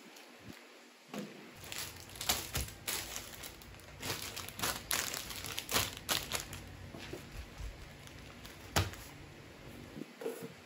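Plastic-wrapped groceries crinkling and rustling as they are handled and set down on a table, with scattered light knocks of items being placed.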